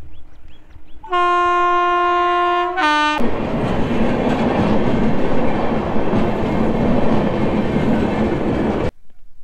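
Indian Railways passenger train with red coaches passing close by: its horn sounds one long note of about two seconds, then a short lower note, followed by the loud, even noise of the coaches running past. The sound cuts off suddenly near the end.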